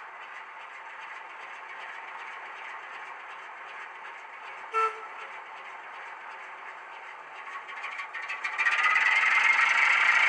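Class 08 diesel shunter sound from an ESU HiFi sound decoder, played through a model locomotive's small speaker. The engine idles steadily, with a short horn pip about five seconds in. Near the end the engine revs up loudly, rising in pitch, as the loco pulls away.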